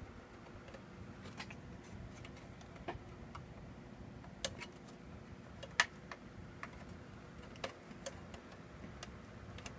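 Scattered small plastic clicks and light taps, irregular and a second or more apart, as the plastic clips holding a cassette deck's level-meter display board are pried and released with a screwdriver and fingers.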